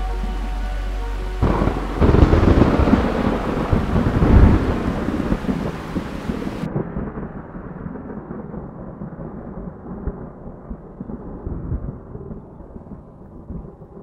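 Thunder rumbling over rain: the rumble swells about two seconds in, then slowly dies away, sounding muffled from about halfway on.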